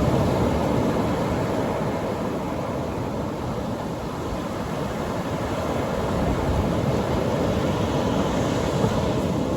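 Atlantic Ocean surf breaking on a beach: a continuous wash of waves, swelling louder near the start and again after about six seconds.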